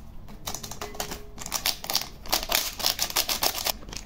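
Small paper sachet of vanilla sugar being shaken and tapped empty over a bowl: a quick run of dry papery rustles and taps from about half a second in until just before the end.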